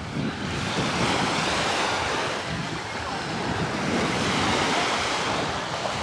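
Small sea waves breaking and washing up on a sandy shore, with wind buffeting the microphone.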